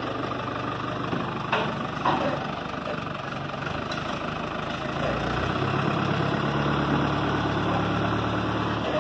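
Diesel engine of a New Holland TL75E tractor running close by, steady at first and louder from about five seconds in. Two short knocks come between one and a half and two seconds in.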